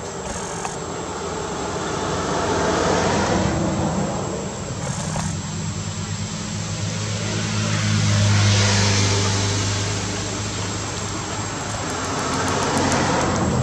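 Motor vehicles passing on a nearby road: engine hum and tyre rush swell up and fade away three times in a row, over a steady high buzz of insects.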